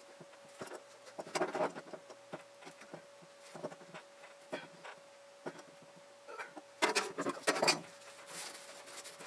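Scattered handling noises of hands-on plumbing work: short knocks, clicks and rubbing, busiest about a second and a half in and again around seven seconds, over a faint steady hum.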